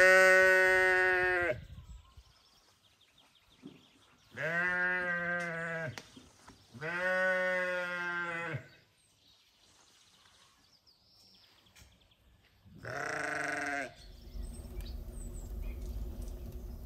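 Sheep bleating: four long bleats, the first the loudest and the last the shortest. Near the end a wood fire burns in a brick oven, a steady low rush with faint crackles.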